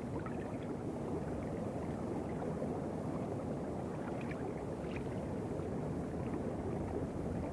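Steady low rushing water noise, an underwater ambience with no distinct events in it.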